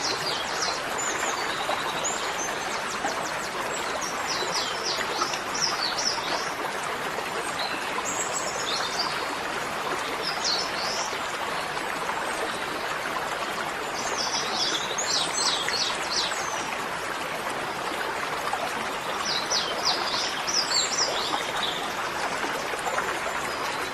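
Small birds chirping in short bursts every few seconds over a steady rushing noise, like flowing water.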